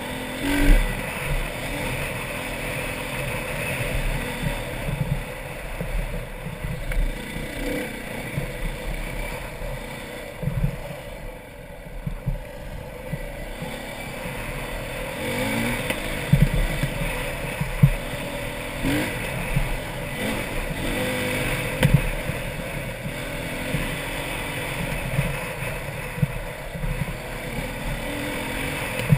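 Dirt bike engine being ridden along a trail, its pitch rising and falling as the throttle opens and closes, with a few sharp knocks and wind on the microphone.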